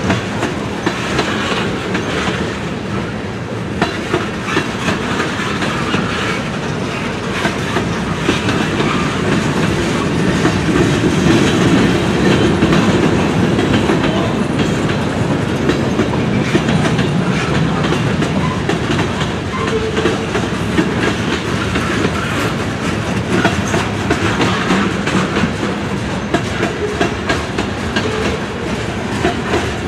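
A freight train's cars rolling past, their steel wheels clicking and clattering over the rail joints in a steady, loud run of clicks.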